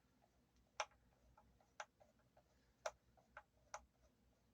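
Faint, irregular clicks and ticks of a screwdriver working small screws out of a guitar's electronics-cavity cover, about five sharper clicks among softer ones.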